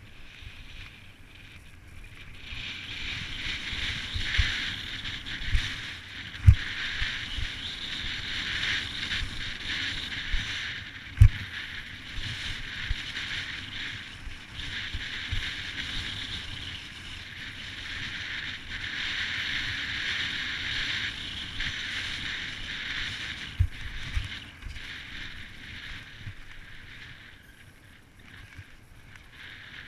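Mountain bike riding fast down a dry dirt singletrack: a steady rushing hiss of tyre and ride noise, broken by sharp thumps as the bike hits bumps, the two loudest about six and eleven seconds in. The hiss dies away a few seconds before the end as the bike slows.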